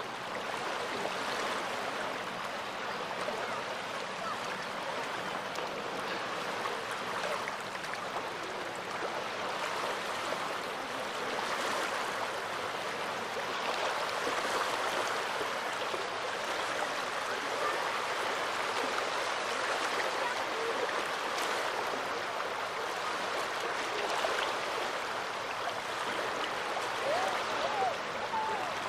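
Small sea waves washing onto the shore in a steady hiss that swells and eases every few seconds.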